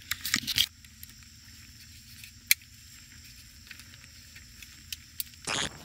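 Faint handling noise: scattered clicks and taps over a low hiss, with a sharper tick about two and a half seconds in and a short louder rustle near the end.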